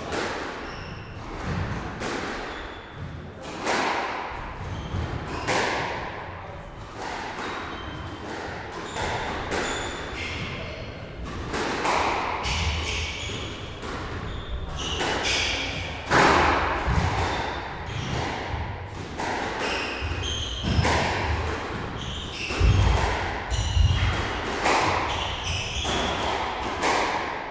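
Squash balls striking walls and racquets in an irregular rally rhythm, a sharp thud every second or two with some echo, and short squeaks of court shoes on the wooden floor between the hits.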